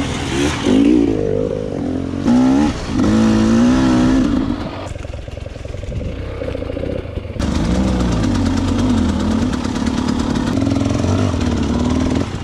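Enduro motorcycle engine revving up and down in short bursts for the first few seconds. It drops to a lower, quieter note for a couple of seconds, then runs steadily again from a little past the middle.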